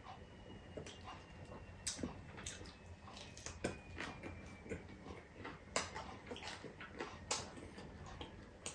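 Close-up eating sounds: chewing and lip smacks, with scattered sharp clicks of fingers working rice and food on a plate.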